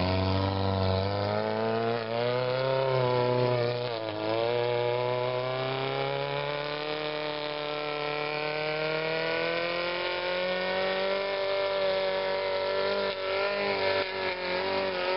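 Engine of a tube-frame rock-crawling buggy pulling hard up a steep rock slab, a steady buzzing drone held at fairly constant revs. Its pitch dips briefly about four seconds in, then slowly climbs.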